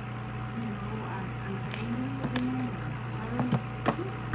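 Homemade glue slime being squeezed and stretched by hand, giving a few sharp pops and clicks, loudest near the end.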